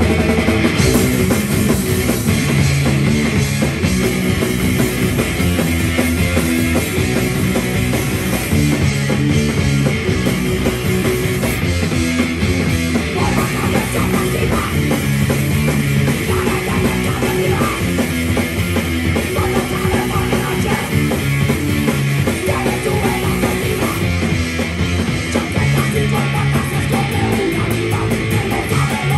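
Live heavy rock band playing loud and without a break: electric guitar, bass guitar and a full drum kit, with a vocalist shouting into a microphone.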